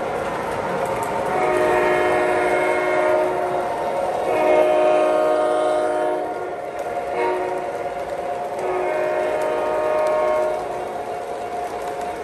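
Sound system of an MTH O scale Great Northern diesel locomotive blowing its multi-tone horn in the grade-crossing pattern: two long blasts, a short one and a long one, over the train's steady running noise.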